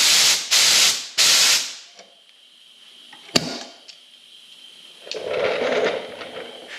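Three short, loud bursts of hissing, then a single sharp click a little over three seconds in and a softer rustling noise near the end.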